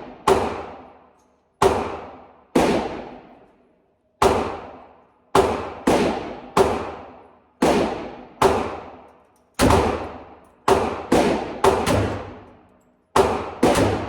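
.45 ACP pistol shots fired in a series, about sixteen at an uneven pace, some in quick pairs, each loud report followed by an echoing tail.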